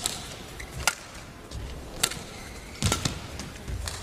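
Badminton rackets striking a shuttlecock in a rally: sharp cracks about a second apart. A heavier hit with a low thud comes about three seconds in.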